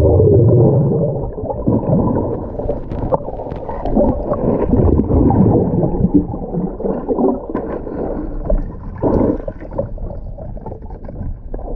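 Muffled underwater sound of water and air bubbles, gurgling with many small irregular clicks and pops as a spearfisher swims past the camera.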